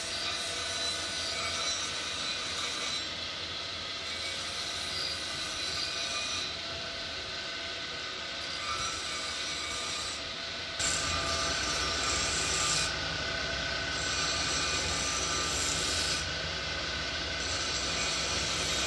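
Belt-driven grinding wheel, turned by an electric motor through V-belts, running with a steady hum while a metal lock body is ground against it. The grinding gets louder about eleven seconds in.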